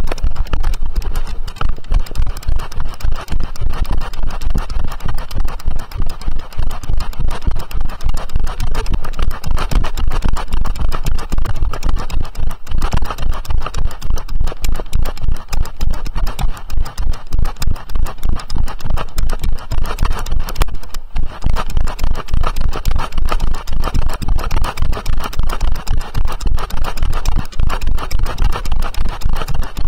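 A horse moving at a quick, steady gait along a paved path, heard from on its back: an even, fast rhythm of hoofbeats and jolts over a loud, continuous low rumble.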